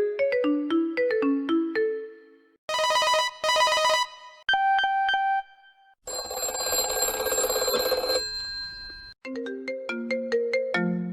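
A run of different telephone ringtones, one after another with short gaps. First comes a short melody of plucked-sounding notes, then two short buzzy electronic rings, then a few plain beeps. After that comes a harsh, noisy ring lasting about three seconds, and near the end another melody of notes begins.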